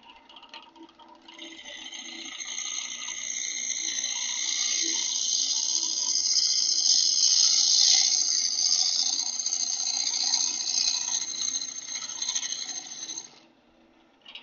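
Bowl gouge cutting the wood spinning on a lathe: a steady hiss that starts about a second in, swells toward the middle and stops abruptly near the end, with the lathe's low hum underneath.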